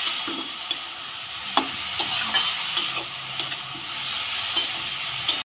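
Shredded cabbage sizzling in oil in a kadai as a metal spatula stirs and tosses it, with scattered scrapes and taps of the spatula against the pan.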